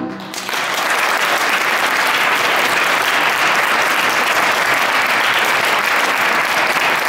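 Audience applause: the music's last note cuts off at the start, then clapping from the whole room swells in within half a second and carries on steadily.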